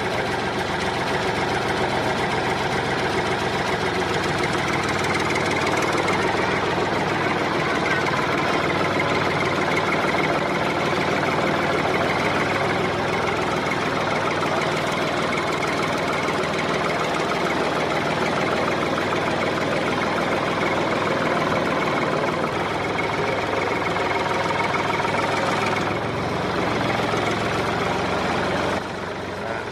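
An engine running steadily at idle, with no change in speed, dropping away abruptly near the end.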